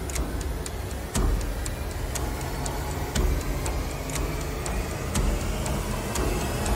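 A deep, steady rumble under a dense hiss, pricked by sharp ticks every fraction of a second, with a heavier hit about a second in. It sounds like a cinematic sound-design bed rather than the footage's own audio.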